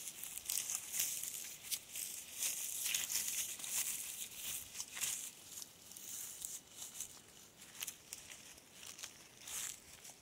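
Footsteps rustling and crackling through leaf litter on a hillside trail, irregular and louder in the first half.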